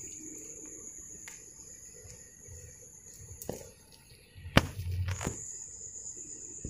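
Insects, likely crickets, trilling in one steady high-pitched tone that stops a little past halfway and starts again near the end. A few sharp clicks sound over it, the loudest a knock with a low thud about four and a half seconds in.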